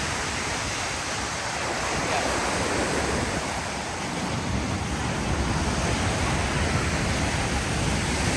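Ocean surf washing onto the beach, a steady rush of waves with wind buffeting the microphone, the low rumble growing stronger about halfway through.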